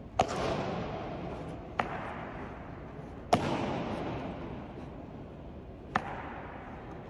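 Honor guard drill strikes: four sharp cracks of boot stamps and rifle butts on a stone floor, each ringing out in a long echo through a large hall. The first and third are the loudest.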